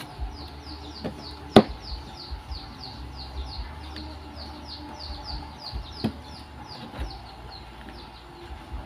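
A knife knocking sharply on a plastic cutting board a few times, the loudest about one and a half seconds in, over chickens in the background peeping rapidly and steadily in high falling chirps, about four a second.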